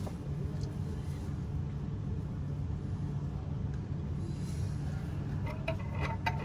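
Steady low background rumble and hum, with a few faint light clicks near the end.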